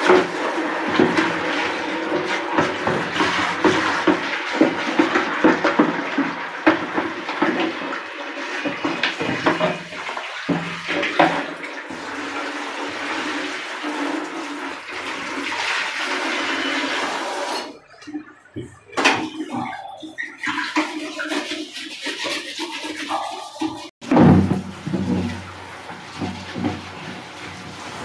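Handheld shower sprayer spraying water into an emptied plastic toilet cistern as it is scrubbed by hand, a steady hiss and splash of spray on plastic. About two-thirds of the way in the spray comes in short broken spurts, then it runs steady again after an abrupt cut near the end.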